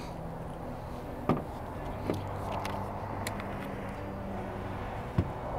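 A motor vehicle engine running steadily, with a few sharp clicks, the loudest about a second in and another near the end.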